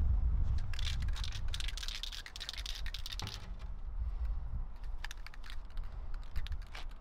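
Aerosol spray paint can being shaken, its mixing ball rattling in quick clicks, densest in the first half, over a low rumble.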